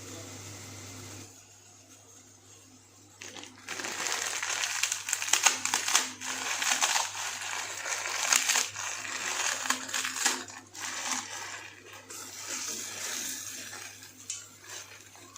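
Dry instant noodle block being crushed by hand inside its packet: irregular crunching and crinkling that starts about three and a half seconds in and keeps going.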